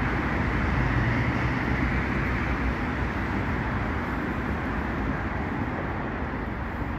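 Steady city road traffic noise, the even rush of cars on a nearby street, with a vehicle's low engine hum fading away in the first couple of seconds.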